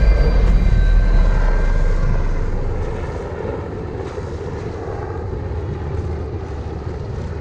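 A steady engine drone with a heavy low rumble, loud at first and easing over the first few seconds to a lower, even level.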